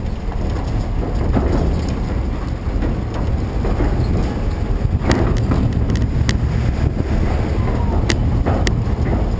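Wind buffeting the microphone over the low rumble of a hooklift truck driving with a loaded dumpster. There are a few sharp knocks about halfway through and again near the end.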